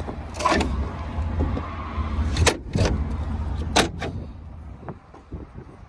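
Several sharp clacks and knocks of vehicle hardware being handled, over a low wind rumble that drops away near the end.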